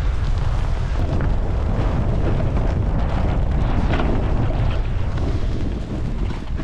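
Wind buffeting the microphone during a fast snowboard descent, a steady heavy rumble, with the hiss of the board sliding through fresh snow beneath it.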